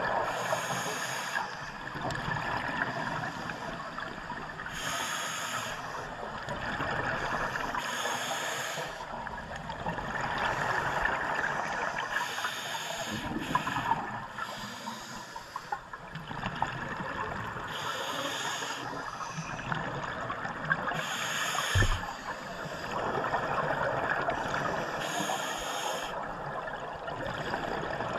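Scuba diver breathing through a regulator underwater: a hissing inhalation every three to five seconds, with the rushing gurgle of exhaled bubbles between. A single low bump about 22 seconds in.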